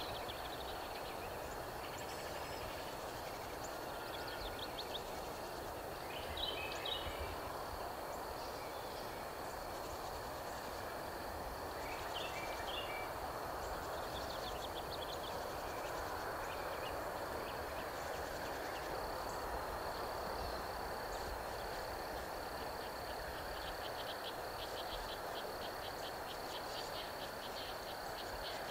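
Insects chirring in autumn woods: a steady high drone, with a fast trill that picks up near the end. A few short high calls about 6 and 12 seconds in. Under it all runs a steady hum of distant traffic.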